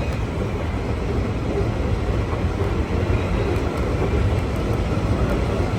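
Steady rumble and rattle of a passenger car, a converted logging flatcar, rolling along the track at speed.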